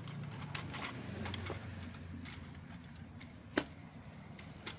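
Light clicks and taps of the plastic toy excavator and its circuit board being handled and set down on a wooden table, with one sharper click about three and a half seconds in and another near the end, over a faint low hum.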